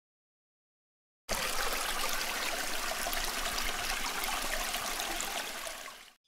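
Silence, then about a second in a shallow forest stream starts, water trickling and rippling steadily over a stony, leaf-strewn bed, fading out near the end.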